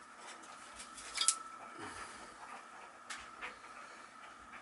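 Light metallic clicks and clinks from handling a furnace exhaust-fan motor's sheet-metal mounting plate and its screws, the sharpest a little over a second in, with two softer ones about three seconds in. A faint steady high-pitched tone runs underneath.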